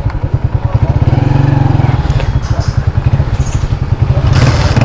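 Honda CG 125's single-cylinder four-stroke engine running at low revs, a steady rapid train of low thuds. A short hiss comes in near the end.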